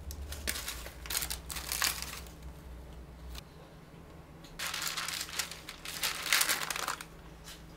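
Crinkling and rustling of baking parchment paper and food packaging being handled, in two spells: one in the first couple of seconds and a louder one from about halfway to near the end.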